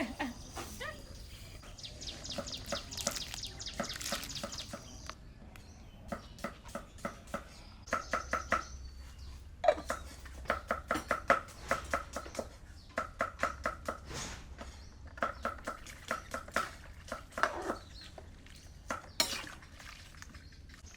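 Cooking utensils clattering and knocking: runs of quick sharp strikes, some with a short metallic ring, as food is handled in a pot or on a board.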